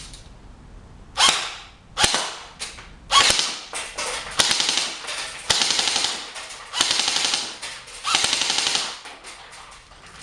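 Airsoft M4 rifle fired on full auto in a string of about eight short bursts of rapid shots, each from a fraction of a second to just over a second long.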